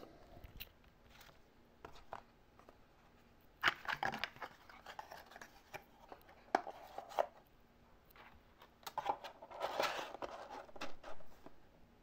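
Cardboard packaging being handled up close: a nylon sheath set into a cardboard box and a cardboard insert moved, in several short bursts of rustling, scraping and sharp clicks.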